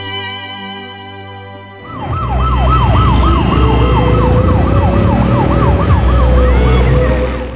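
Street traffic rumble cuts in about two seconds in, with a siren wailing in fast up-and-down sweeps, about three a second, over it. Soft music is heard before the traffic comes in.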